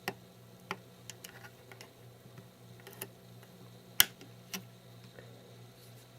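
Scattered small clicks and ticks as a spudger pries the iPhone 3GS screen assembly up from the phone case, the sharpest click about four seconds in. A faint steady low hum runs underneath.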